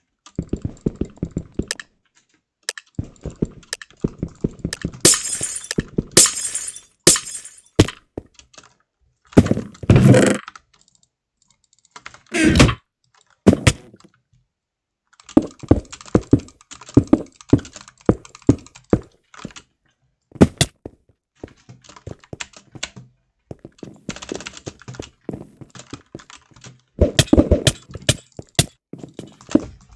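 Runs of quick, sharp clicks and taps with irregular gaps, several louder knocks and a few short scratchy bursts.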